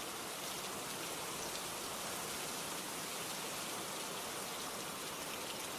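Steady rainfall, an even hiss of rain with no thunder or single drops standing out.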